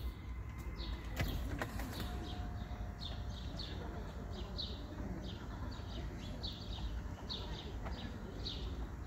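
Turny HD electric swivel-seat mechanism running as it carries the passenger seat out through the door: a low steady hum, with a few sharp clicks in the first two seconds. Birds chirp repeatedly in the background from about three seconds in.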